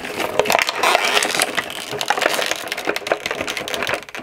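Cardboard of an advent calendar compartment being pulled, bent and torn by hand, a continuous run of crackling and crunching as a stuck item is worked loose.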